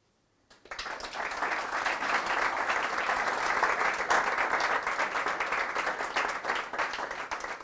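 A small audience applauding, starting about half a second in and going on steadily.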